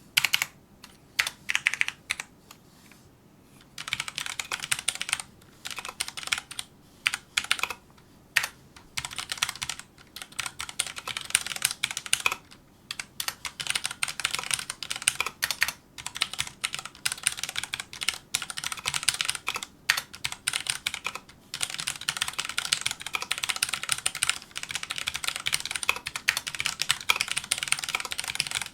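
Typing on a Filco Majestouch2 mechanical keyboard with Cherry MX Brown switches: a few separate keystrokes at first, then fast, continuous touch-typing in bursts with brief pauses.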